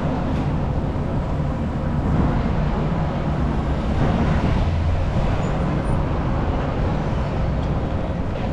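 Steady low rumble of city road traffic and vehicle engines, swelling slightly about halfway through.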